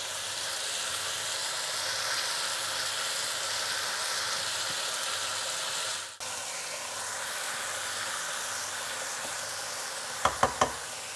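Sliced potatoes frying in a pan, a steady sizzle with fresh fenugreek leaves heaped on top. Near the end, four or five quick knocks of a wooden spatula against the pan as stirring starts.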